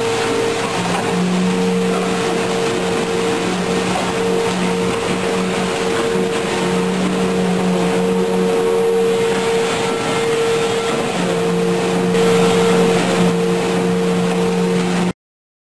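Loud, steady drone of construction machinery inside a rail tunnel: a constant hum over a rushing noise. It cuts off suddenly near the end.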